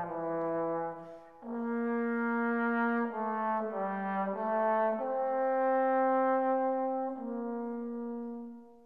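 Background music: a slow melody of long held notes that change every second or two, with a short dip a little over a second in, fading out near the end.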